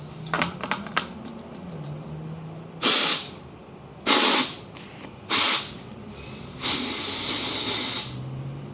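Compressed air hissing from a tire inflator at a tire's valve stem as the flat tire is filled: a few clicks, then three short bursts of air about a second apart and a longer hiss of about a second and a half, over a steady low hum.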